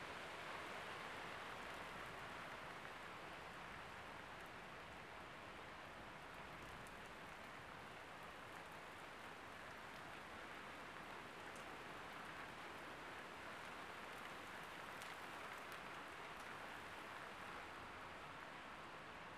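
Steady rain from a thunderstorm falling as a faint, even hiss, with a few scattered drop ticks.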